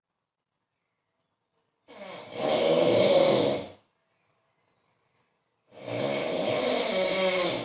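A man snoring very loudly in his sleep: two long snores of about two seconds each, with a pause of about two seconds between them. The first starts softer and swells.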